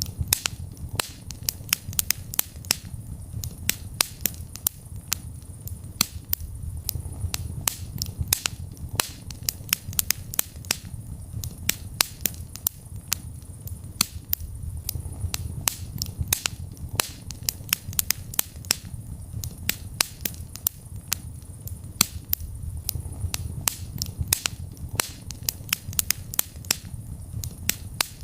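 Wood fire burning in a fireplace, crackling with many sharp, irregular pops and snaps over a low, steady rumble of the flames.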